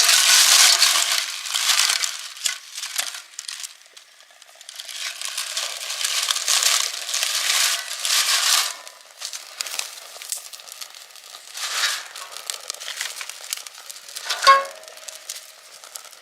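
Cooking over a wood fire: a hissing sizzle with crackles that swells and fades in surges, with a short tonal sound near the end.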